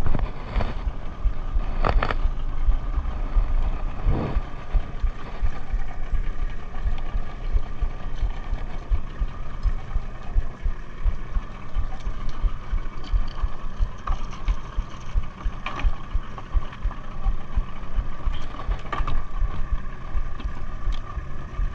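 Small wooden fishing boat's engine running steadily, with a few short knocks from tackle being handled on board.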